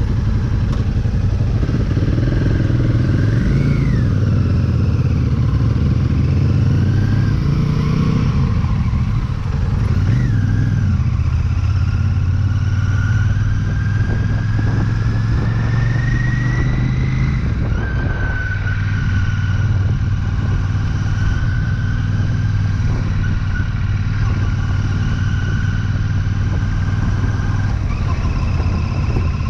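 Royal Enfield Shotgun 650's 648 cc parallel-twin running under way. Its pitch climbs slowly for several seconds, then drops suddenly at an upshift about halfway through, holds steady, and changes again near the end.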